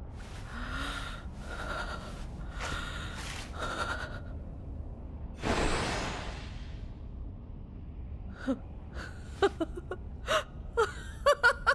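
A woman's voice panting hard, four gasping breaths about a second apart, then one long heavy breath. About eight seconds in, short breathy chuckles start and come faster toward the end.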